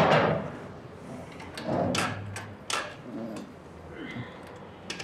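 Metal clanks and knocks from a motorcycle lift platform's hinged metal ramp plate being handled and set back in place: a loud clank at the start that rings away, then a scrape about two seconds in and a sharp knock shortly after.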